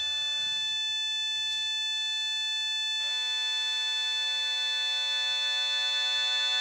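Sustained musical drone: a chord of steady held tones, the notes shifting a few times, with a quick downward slide about three seconds in.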